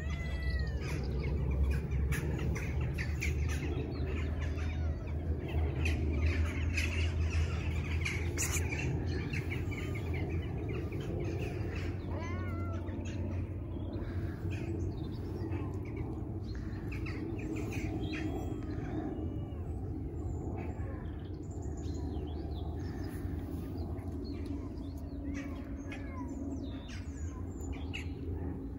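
Wild birds chirping and calling on and off, over a low rumble that is strongest in the first several seconds.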